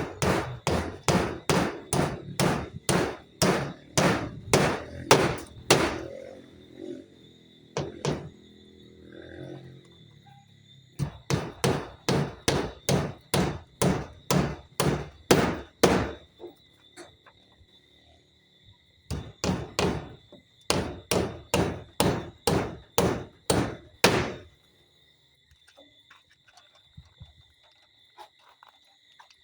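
Hammer driving nails, struck about twice a second in three runs of a dozen or so blows, with short pauses between the runs.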